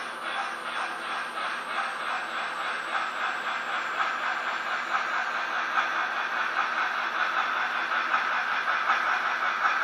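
Roundhouse 2-8-0 model steam locomotives chuffing in a fast, even rhythm, growing steadily louder as they approach, with a faint high whine that slowly falls in pitch.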